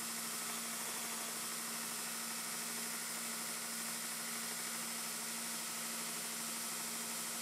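Steady low hum with an even hiss, unchanging throughout, with no knocks or grinding.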